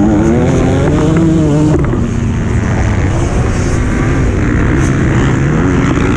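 Motocross bike engine running hard close to the microphone, its pitch climbing with the revs, dropping sharply just under two seconds in at a gear change, then holding and climbing again near the end.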